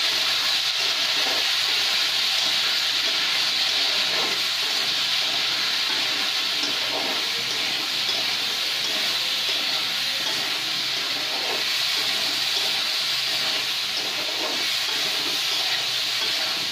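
Vegetables sizzling in hot oil in a kadhai, a steady hiss, while a spatula stirs and scrapes them around the pan now and then.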